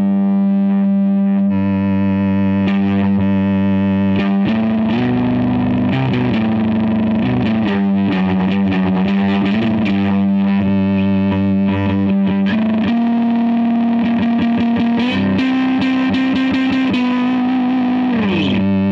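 Electric guitar through a Boss DF-2 Super Feedbacker & Distortion pedal, played as single notes held in sustained, heavily distorted feedback with wavering vibrato. The held note steps to a new pitch a few times and slides down near the end, giving a keyboard-like, almost Atari-like tone.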